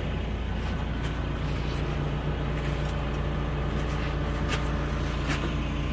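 An engine idling steadily with an even low drone, with a few faint clicks or taps over it.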